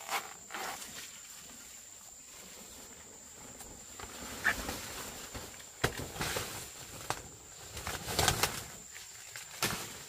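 Thick, juicy giant taro stalks and their big leaves being handled and bent down by hand: several bursts of leafy rustling with sharp cracks and snaps, loudest about eight seconds in, under a faint steady high whine.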